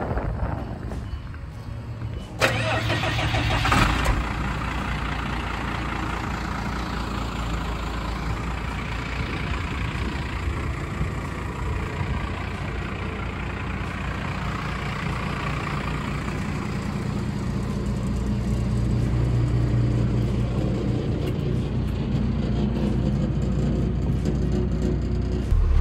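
A 1995 Ford F800 dump truck's diesel engine starts up about two seconds in, with a loud burst as it catches, then settles into a steady idle.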